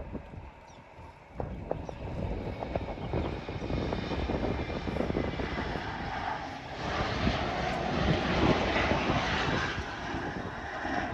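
Airplane engines rumbling as a plane takes off or passes, growing louder from about a second in and loudest around two-thirds of the way through.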